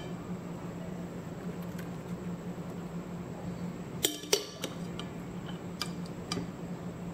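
A metal slotted spoon clinks sharply twice against a glass bowl about four seconds in, followed by a few lighter taps, over a steady low hum.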